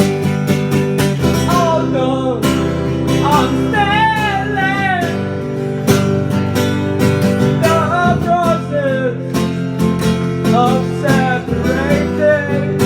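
Music: a singer with strummed acoustic guitar, the voice coming in sung phrases with vibrato over a steady strum.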